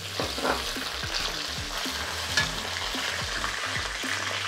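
Browned sliced onions and freshly added curry leaves sizzling steadily in hot oil in a metal wok, with a wooden spatula scraping and stirring against the pan.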